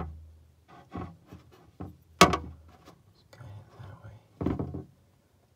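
Metal feeding tongs clicking and knocking inside a small glass reptile enclosure, as a cockroach is shaken off them. There is a sharp knock at the start and another about two seconds in, with softer taps in between and near the end.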